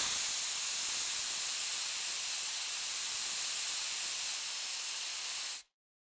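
Steady, high hiss of a spray nozzle blasting a fine mist, cutting off sharply near the end.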